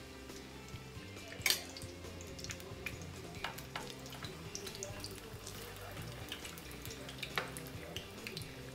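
Breaded stuffed potato balls shallow-frying in vegetable oil: a steady fine crackle of small pops. A few sharper clicks come as a metal slotted spoon and fork touch the pan to turn them, the loudest about a second and a half in.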